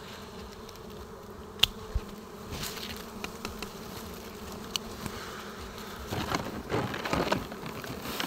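A swarm of dwarf honeybees buzzing steadily around their small open comb. A single sharp snip of pruning shears comes about one and a half seconds in, and twigs and leaves rustle near the end.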